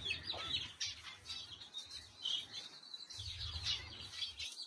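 Small aviary birds chirping: many short, high chirps overlapping.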